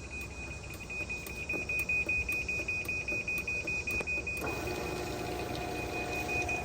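Garage door opener sounding a fast, steady warning beep before a remote close. About four and a half seconds in, its motor starts and runs with a steady hum as the door begins to close, while the beeping goes on.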